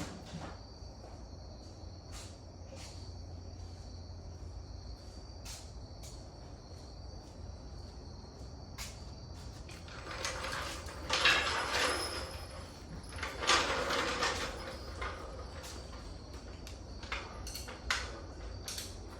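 Crickets chirping steadily over a low hum, with scattered clicks and two louder noisy spells of a second or two each, about ten and thirteen seconds in.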